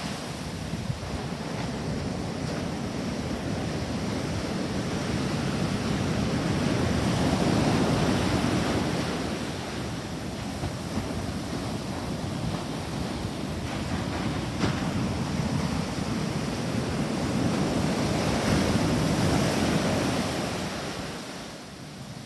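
Ocean surf washing onto a beach, the waves swelling and easing in slow surges about ten seconds apart, with some wind on the microphone.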